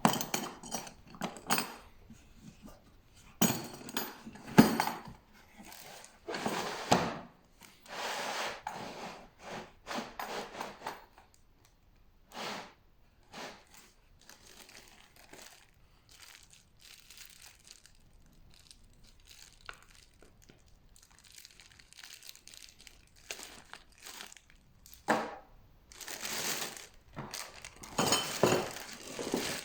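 Packaging crinkling and rustling in irregular bursts, as when wrapping is handled and torn, with a quieter stretch of sparse clicks in the middle.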